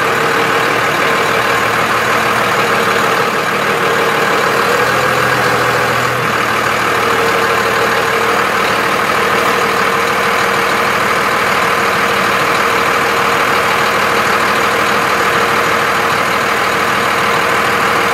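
A 1998 Dodge Ram 2500's 12-valve Cummins turbo diesel running steadily at low rpm, recorded from beneath the truck, with a rattle that the owner cannot trace.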